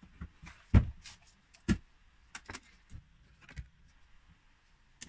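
Handling knocks from lifting and moving a car's carpeted boot floor cover: two loud thumps about a second apart within the first two seconds, then lighter knocks and clicks.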